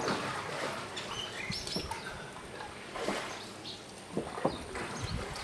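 Small birds chirping in short, scattered calls, with a few soft splashes of a wooden paddle dipping into the water in the second half.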